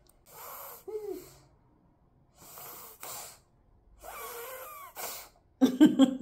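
A baby's breathy puffs and snorts, four of them about a second apart, two with a short squeak of voice. Near the end comes a louder burst of rapid, stuttering sputters.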